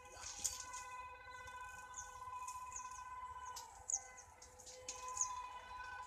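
Small birds chirping over and over, with a faint steady humming tone underneath that dips out briefly about four seconds in.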